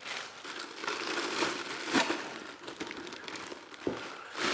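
Plastic packaging crinkling and rustling as it is handled on the multi-cooker's cooking pot, with a few short knocks, the sharpest near the end.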